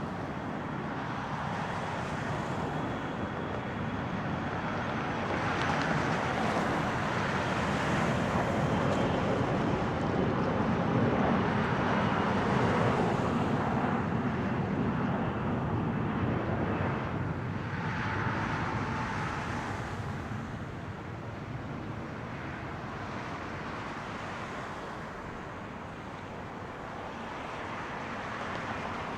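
Boeing 787-8 Dreamliner's jet engines, a steady rushing roar that grows louder as the airliner passes on its landing approach, loudest around the middle, then fades as it moves away.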